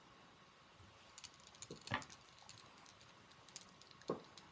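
Small fly-tying tools (hackle pliers and a bobbin holder) being handled at the vise: faint scattered clicks, with a sharper tap about two seconds in and another near the end.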